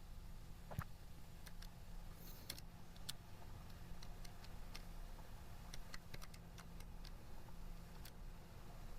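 Faint, irregular light clicks of calculator keys being pressed, a dozen or so spread over several seconds, over a low steady hum.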